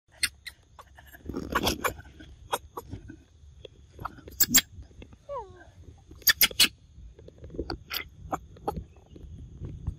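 Young macaques close by: a series of sharp clicks and smacks, with one short falling squeak about five seconds in, over a faint steady high tone.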